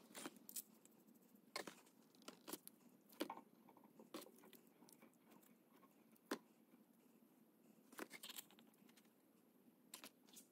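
Faint, scattered clicks and knocks of metal engine parts being handled on a workbench, with the crinkle of a plastic parts packet being torn open.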